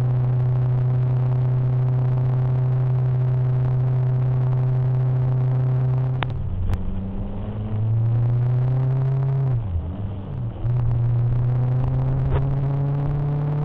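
Motorcycle engine at a steady cruising drone. About six seconds in the sound breaks off sharply. After that the engine note rises in pitch under acceleration, drops at a gear change, and climbs again.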